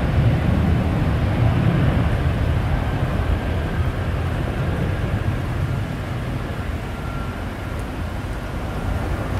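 Boeing 737-400's two CFM56-3 turbofan engines at takeoff power during the takeoff roll and climb-out: a continuous deep jet rumble, loudest at first and easing slightly as the plane lifts off and draws away, with a faint whine that drifts slightly lower in pitch.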